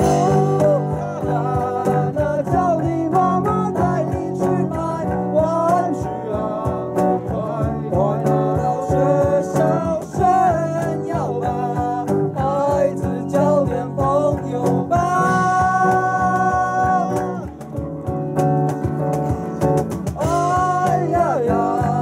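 Live acoustic band playing a song: a lead vocalist sings over two strummed acoustic guitars, electric bass and cajón. The vocalist holds one long note a little past the middle, then the melody carries on.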